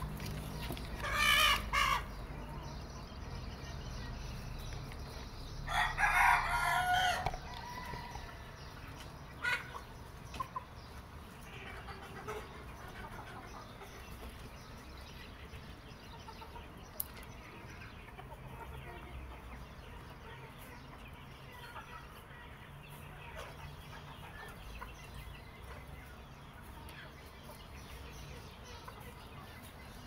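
A rooster crowing in the background: a short call about a second in, then a longer crow of about a second and a half around six seconds in, over a low steady rumble with a few faint clicks.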